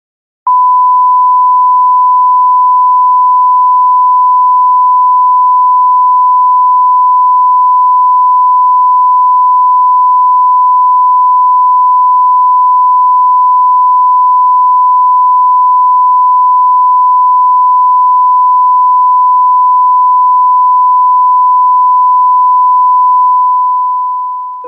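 One long, unbroken electronic beep at a single high pitch, starting about half a second in and fading out just before the end.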